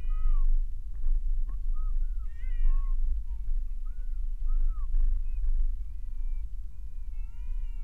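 Low rumble of a car driving, heard inside the cabin, under many short high-pitched calls that rise and fall in pitch, several overlapping at different pitches.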